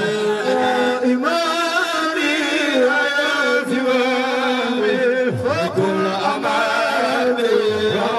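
Amplified male voices chanting a Sufi devotional song. A lead voice holds long, wavering notes over a steady low held note.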